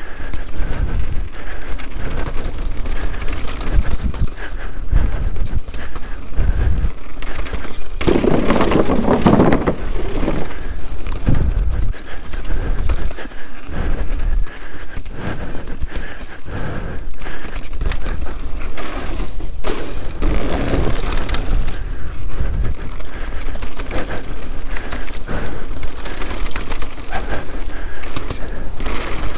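Canyon Sender downhill mountain bike ridden fast over a rough, rocky trail: continuous rattling and clattering with many sharp knocks as the tyres, suspension and frame hit stones and roots. The clattering gets noticeably louder for a couple of seconds about eight seconds in.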